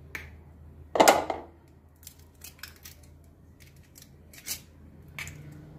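An eggshell being cracked open by hand over a mixing bowl: one sharp knock about a second in, then a scatter of small crisp cracks and clicks as the shell is broken apart.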